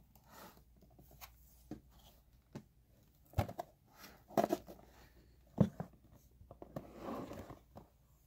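Cardboard box and packaging being handled: irregular light knocks, taps and scrapes of cardboard, the sharpest about three and a half and five and a half seconds in, with a longer rustling scrape about a second before the end.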